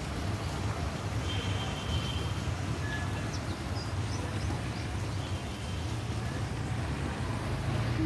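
Steady low rumble of background noise, with a few faint, short, high bird chirps.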